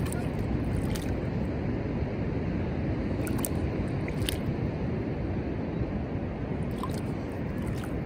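Ocean surf and wind buffeting the microphone: a steady low noise, with a few faint ticks.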